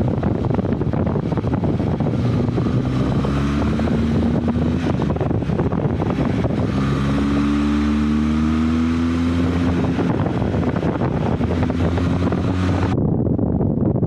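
Benelli TRK 502 X's parallel-twin engine running on the move, under heavy wind buffeting on the microphone. About halfway through the engine note grows louder and rises slowly as the bike accelerates, then holds steady; a high hiss stops abruptly near the end.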